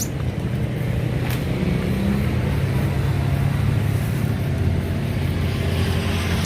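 A motor vehicle's engine running close by: a steady low hum that grows a little stronger after the first second.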